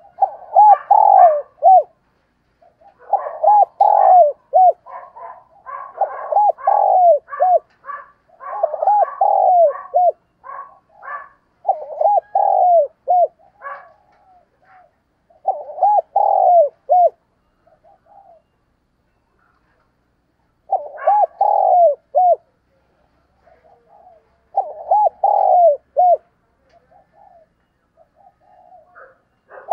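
Spotted dove cooing: about eight phrases of a few arching, hooting coos, one every two to four seconds, with a longer pause about two-thirds of the way through.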